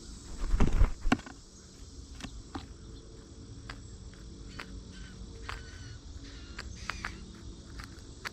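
Birds feeding: a heavy thump in the first second, then scattered sharp taps and knocks, with a few short chirps, over a steady background.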